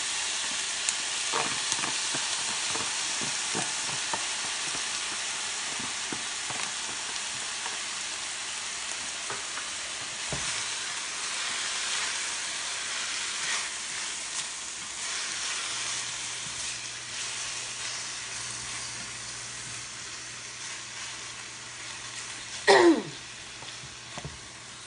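Leftover rotisserie chicken pieces sizzling in a stainless steel pan with onion, garlic and peppers, stirred with a spatula that clicks and scrapes against the pan. The sizzle slowly dies down, and a loud sharp knock of the spatula on the pan comes near the end.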